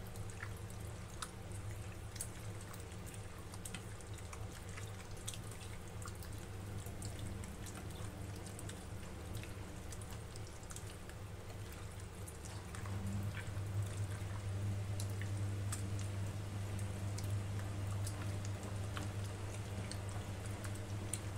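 Wet squelching and dripping as a gloved hand squeezes and mixes raw chicken pieces in an egg-and-soy-sauce marinade in a stainless steel bowl, heard as scattered short squishes. A steady low hum runs underneath and grows louder about halfway through.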